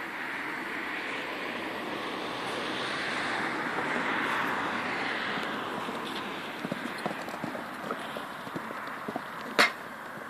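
Horse cantering on an arena's sand footing, a run of short dull hoofbeats in the second half as it comes to a jump, with one loud sharp knock near the end at the fence. A steady noisy hiss, like wind on the phone's microphone, runs underneath.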